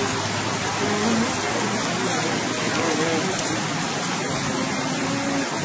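Steady rain falling on a tent's plastic sheeting, a dense continuous hiss with faint voices underneath.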